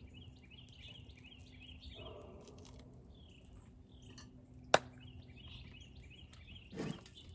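Songbirds calling in the background with repeated short chirps, and a single sharp click a little under five seconds in.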